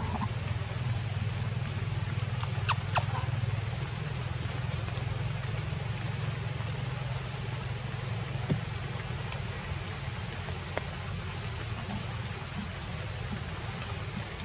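Steady outdoor background of low rumble and hiss, with a few sharp clicks about three seconds in and fainter ones later.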